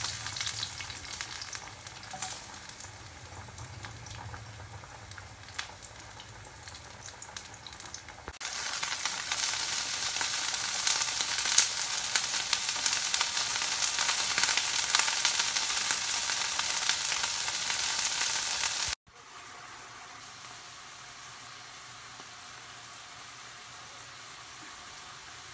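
Garlic sizzling in hot oil in a nonstick frying pan, then much louder, steady sizzling with crackles as baby broccoli stir-fries in the garlic oil, starting about 8 seconds in. About 19 seconds in it drops suddenly to a quieter steady sizzle.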